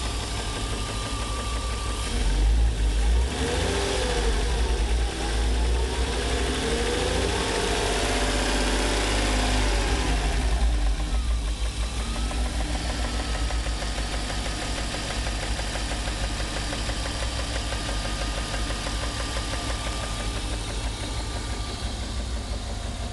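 BMW E36 325is 2.5-litre straight-six running with a loud rapid ticking and a slightly rough idle. It is revved for several seconds, from about two seconds in, and then drops back to idle; the owner says it smooths out above idle. No fault codes point to the cause.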